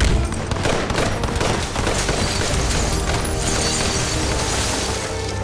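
Rapid gunfire, a dense volley of shots in the first couple of seconds, over a tense orchestral film score.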